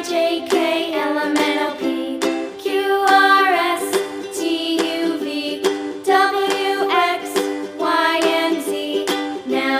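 Children's song with plucked ukulele accompaniment and a bright melody line.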